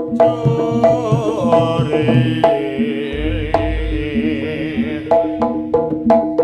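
Javanese jaranan accompaniment music: hand drums under repeated tuned percussion notes and a wavering melody line. The drum strokes come quicker and more regularly in the second half.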